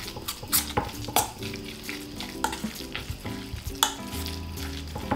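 Metal spoon mixing canned tuna and mayonnaise in a stainless steel bowl: wet squishing, with several sharp clinks of the spoon against the bowl.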